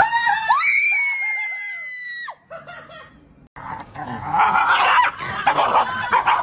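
A loud, high scream with a rising start, held for about two seconds and cut off sharply. After a short gap comes a rough, noisy scuffle as a dog and a cat tussle.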